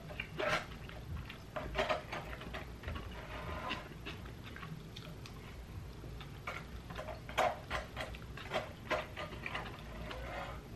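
Close-up mouth sounds of eating: irregular wet smacks, clicks and slurps as spoonfuls of soup are taken, clustered in short runs.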